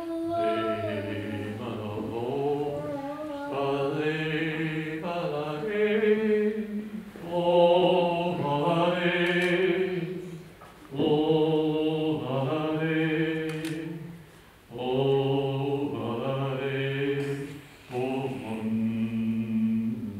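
A man's voice chanting wordlessly in long held tones, about six drawn-out phrases with short breaths between them.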